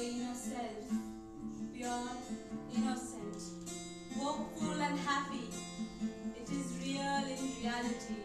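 Acoustic guitar strumming chords, with a woman's voice singing over it.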